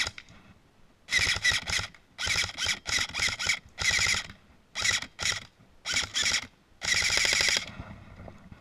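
Lancer Tactical M4 airsoft electric gun firing on full auto in about ten short bursts of rapid BB shots, the last and longest lasting close to a second.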